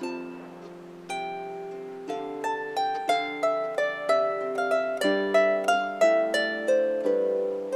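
Small lever harp played solo: plucked notes ringing over a low bass, a few single notes at first, then a quicker melody of about three notes a second from about two seconds in.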